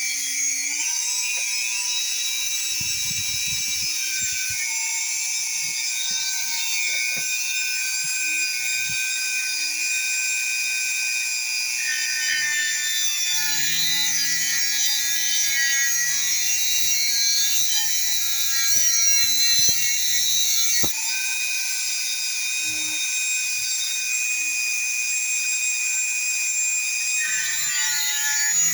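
Dremel rotary tool spinning a cutoff wheel, cutting slots into the heads of stripped steel screws. It makes a steady high whine with a hissing grind, and it breaks off briefly about 21 seconds in.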